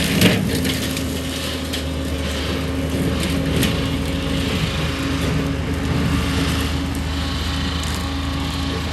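Engine of a mowing machine running steadily under load, with a sharp crack just after the start.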